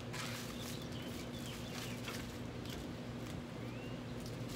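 Steady low hum with a few faint, short bird chirps and light clicks of a paper tag being handled.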